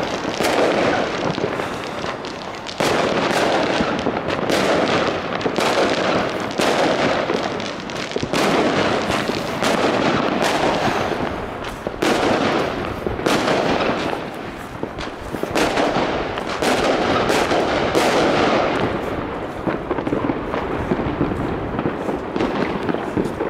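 Aerial fireworks going off all around: a continuous rumble of overlapping bangs with frequent sharp cracks, the sharp cracks thinning out near the end.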